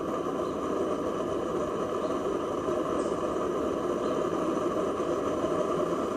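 Vegetable-oil cook stove running with its air blower turned up, a steady whirring rush under the burner flames.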